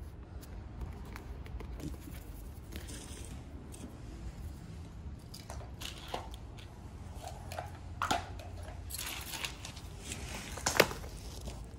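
Hands handling a freshly patched rubber bicycle inner tube: soft rubbing and rustling with scattered small clicks and knocks, a sharp one near the end.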